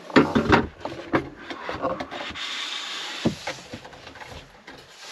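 Camper van dinette table being fitted onto its metal pedestal leg: a few knocks and clunks of the tabletop and leg, with a scraping rub of the tabletop sliding on its mount for about a second midway, then another knock.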